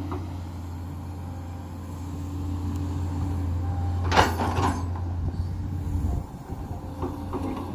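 JCB 210 excavator's diesel engine running steadily under work, with a sharp metallic clank from the digging gear about four seconds in. The engine note drops away about six seconds in.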